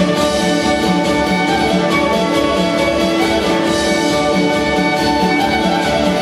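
Irish folk band playing live: a fiddle carries the melody over strummed acoustic guitars, with a steady rhythm.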